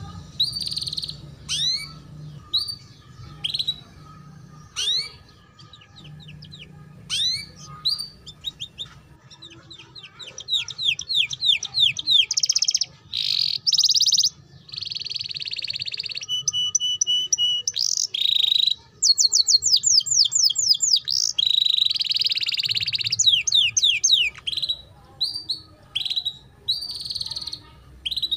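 Domestic canary singing the fast, chirpy 'ngeriwik' style of song: runs of sharp down-slurred chirps and rapid trills, broken by several dense buzzy rolls and a pair of held whistled notes about midway.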